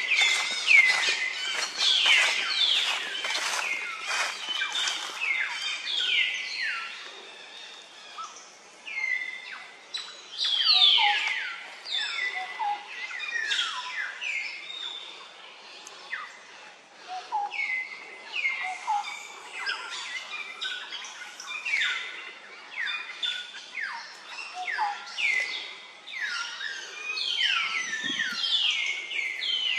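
Birds calling: many short whistled notes that each slide down in pitch, overlapping and repeating throughout, quieter for a few seconds around the middle.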